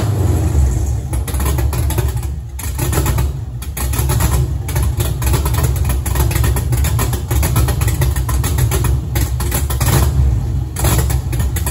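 GM LS6 V8 engine running with a fast, dense knocking through its low exhaust note and a few brief dips in level, which the owner takes for a rod knock.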